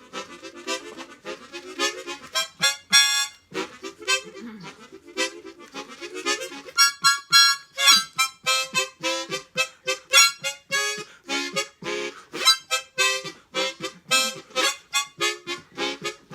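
Harmonica playing a quick tune of many short, chord-like notes.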